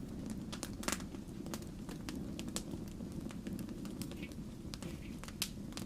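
Wood fire crackling in a fireplace, with irregular sharp pops over a steady low rumble.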